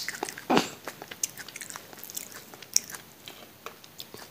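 Close-up chewing and crunching of a mouthful of raw vegetable singju salad, with many small sharp crunches. The loudest crunches come at the start and about half a second in.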